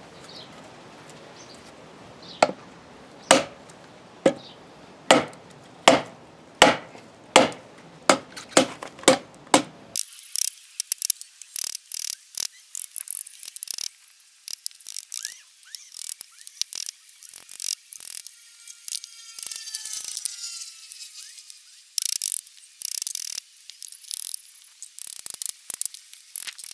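About ten heavy blows on a long-dried eucalyptus log, struck in an attempt to split it, coming faster as they go: the wood is very hard to split and does not give. From about ten seconds in there are lighter, irregular clicks and crackles.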